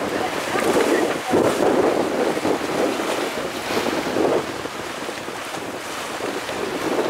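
Wind buffeting the microphone over the wash of choppy waves, stronger in the first three seconds and easing off after that.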